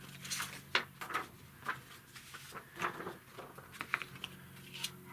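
Loose sheets of pencil-drawing paper being handled and swapped against a picture frame: a run of short rustles and light taps, over a faint steady low hum.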